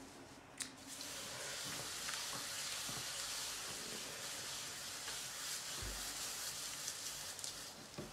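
Wet clay and slip swishing under gloved hands on a spinning pottery wheel as a lump of black clay is centered: a steady wet hiss that begins with a click about half a second in and stops just before the end.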